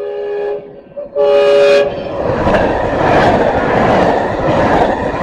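Metrolink commuter train with a Hyundai Rotem cab car leading, coming through the crossing fast: a horn blast ending about half a second in and a second, louder short blast about a second in, then the loud rush of the train passing close by.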